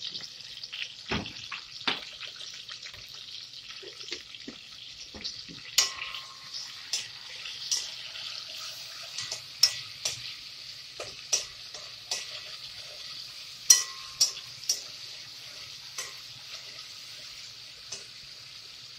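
Oil sizzling steadily in a stainless steel pot as a spoon stirs sofrito and seasonings into it, with irregular sharp clinks of the spoon against the pot, more frequent from about six seconds in.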